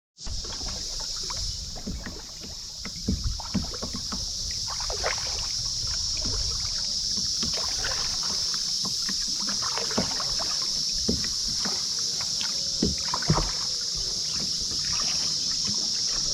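Kayak paddle strokes splashing and dripping in calm water, with a few light knocks, over a steady high-pitched hiss.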